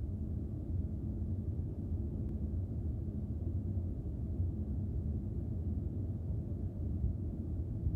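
Steady low rumble of airflow and engine noise inside a Gulfstream V's cockpit during its descent on approach, with a faint low hum underneath.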